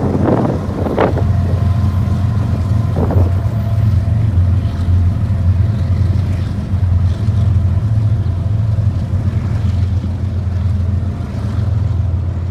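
BNSF diesel-electric freight locomotives running past under power, a steady low engine drone, with a few brief bursts of noise in the first three seconds.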